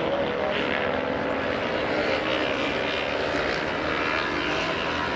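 Racing motorcycle engines, several at once, blending into a continuous drone whose pitch shifts slightly as the bikes accelerate and brake around the track.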